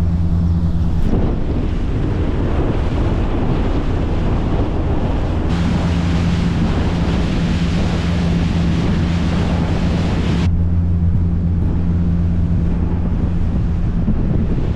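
Motor boat under way in a fresh breeze: wind buffeting the microphone and water rushing past the hull over the steady low drone of the engines. The mix changes abruptly about a second in, about five seconds in and again about ten seconds in, as the shots change.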